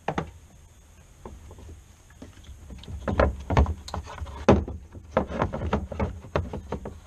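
The 2000 Chevrolet Silverado 1500's plastic upper radiator fan shroud being worked loose and lifted out, knocking and scraping against the radiator and hoses. One sharp knock right at the start, then from about two and a half seconds on a busy run of irregular clunks and rattles, the loudest knock near the middle.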